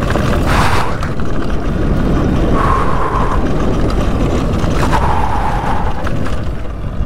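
Wind buffeting the microphone while riding a Talaria Sting R MX4 electric dirt bike, with two short brake squeals, about two and a half and five seconds in. The squeal comes from brake pads that the rider thinks he has worn out on the steep descent.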